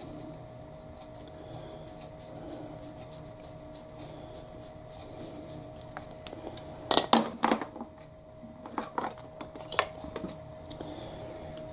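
Small parts and tools being handled at a workbench during a repair of the sewing machine's light socket: a run of light ticks, then a few louder knocks and clatters about seven seconds in and again around nine seconds, over a faint steady hum.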